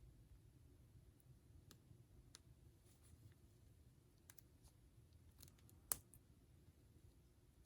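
Faint, scattered small clicks and taps of hands handling a doll's packaging, with one sharper click about six seconds in, over a low hum.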